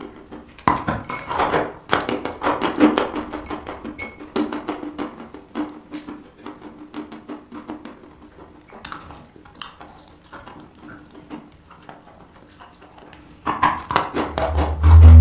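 A block of white chalk being bitten and chewed: dry crunching with sharp cracks, dense for the first few seconds, sparser through the middle, picking up again near the end with a heavy low thump.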